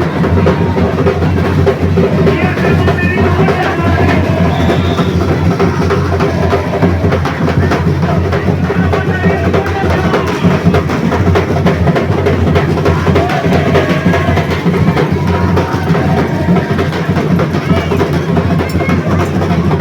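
Live bumba-meu-boi percussion music: dense, fast drumming with a steady heavy bass drum, and voices over it.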